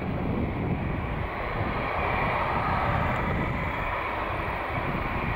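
Airbus A319's jet engines running at low thrust as it taxis, a steady whine and hiss that grows stronger about two seconds in, over a low rumble.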